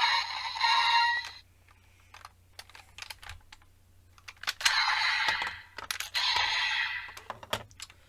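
Kamen Rider Geats toy transformation belt playing electronic sound effects in short bursts, with sharp plastic clicks from raise buckles being handled, slotted and pulled out of the belt between them.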